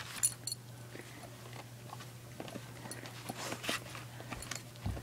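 Dog gnawing a large bone, with irregular small crunches, clicks and scrapes of teeth on bone.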